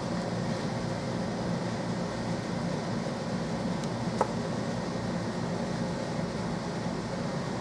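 Steady background hum and hiss, like a fan or air-conditioning unit running, with a single short click a little over four seconds in.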